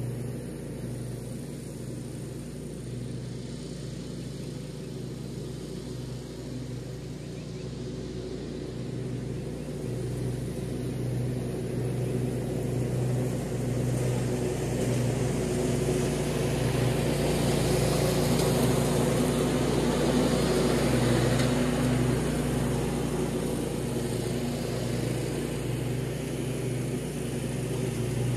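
Riding lawn mower's engine running steadily as it cuts grass, growing louder through the middle of the stretch and easing off slightly near the end.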